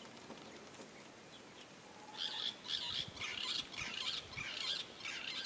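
Birds calling: a quick run of short, repeated high chirps that starts about two seconds in, over faint open-air background.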